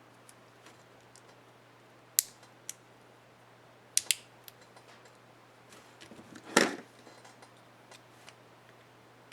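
Small sharp plastic clicks of a laptop keycap and its retainer clip being handled and fitted, with a louder snap about two-thirds of the way through.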